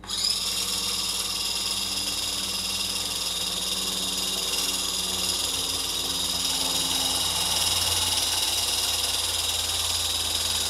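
Electric hand mixer switched on and running steadily at medium-high speed, its beaters whipping egg whites toward a meringue: a continuous motor whine with several high tones.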